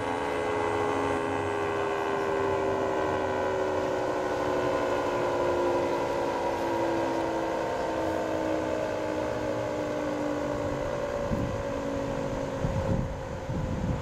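Federal Signal 2T22 dual-tone electromechanical warning siren winding down at the end of its test, its two tones sliding slowly and steadily lower in pitch. Low rumbling noise comes in near the end.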